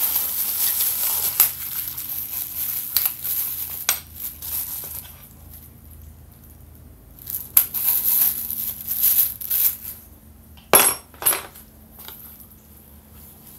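Hand-tool handling on an angle grinder: irregular crinkling and rustling with metal clicks and clinks, and two sharp clicks about eleven seconds in. No grinder motor is running.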